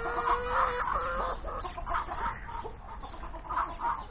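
Backyard chickens clucking, with short calls throughout and one longer drawn-out call in the first second.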